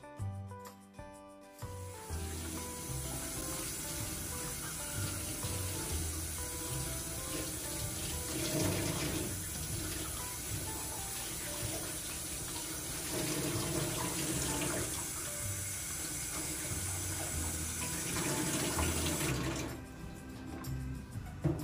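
Water from a faucet running and splashing into a stainless steel sink, over background music. The water comes on about two seconds in and cuts off shortly before the end.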